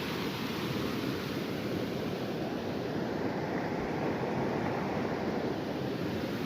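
River water rushing steadily over rocks, an even, unbroken wash of noise.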